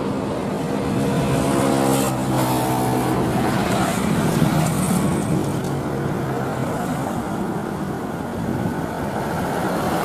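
Twin-engine wide-body jet airliner landing, its engines giving a steady rumble. About two seconds in, a short engine hum with evenly spaced tones rides over it.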